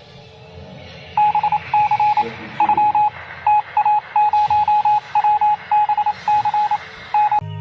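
Electronic beep tone sounding in a string of short and longer beeps, all at the same pitch, in an irregular Morse-code-like pattern over a low steady hum and hiss.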